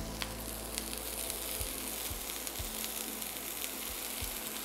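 Halved lettuce hearts sizzling in hot rapeseed oil in a frying pan: a steady frying hiss with a few small crackles.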